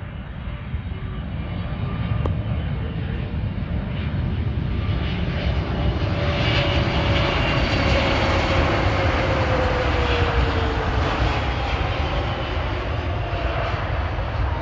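Boeing 777 freighter's two GE90 turbofan jet engines on landing approach, growing steadily louder as the plane nears and peaking as it passes. A whine in the engine noise falls in pitch as the plane goes by.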